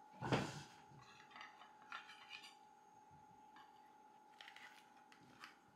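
Knife and fork clinking and scraping on a plate and pie tin as a slice of pie is cut and lifted out, with one louder knock about a third of a second in and scattered light scrapes after. A faint steady hum underneath.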